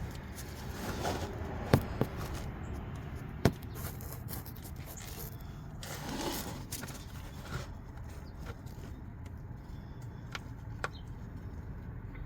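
Scraping and handling noises with a few sharp clicks, the loudest about two seconds and three and a half seconds in, over a steady low rumble.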